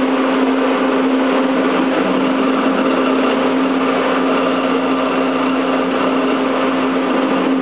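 Fanuc 10S AC servo motor and its AMC brushless servo drive energized, giving a loud steady hum at one unchanging pitch over a hiss.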